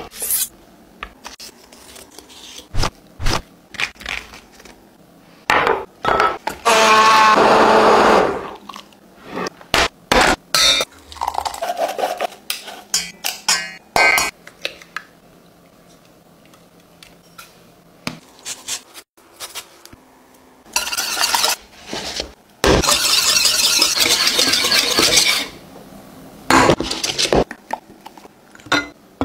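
A run of kitchen prep sounds: a knife cutting through a lemon on a wooden board, an egg knocked against a stainless steel pot, and many clinks and knocks of utensils on the pot. Mixed in are a few stretches of steady rasping noise lasting one to three seconds.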